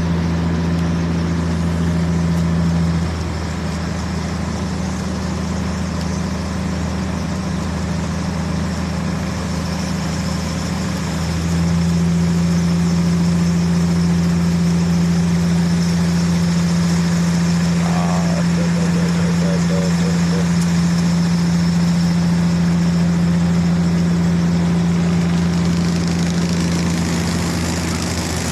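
A vehicle engine running steadily with a low, even hum. It eases down slightly about three seconds in and picks up again around eleven seconds.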